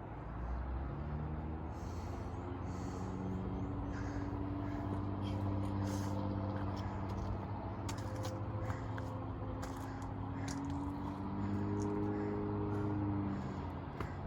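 An engine droning steadily for many seconds, its pitch shifting slowly up and down.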